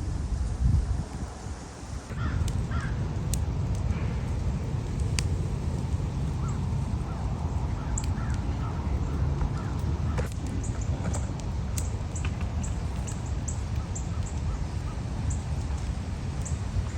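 Birds calling outdoors: a few harsh calls about two seconds in, then a long run of short, high chirps in the second half, with a few sharp taps here and there, over a steady low wind rumble.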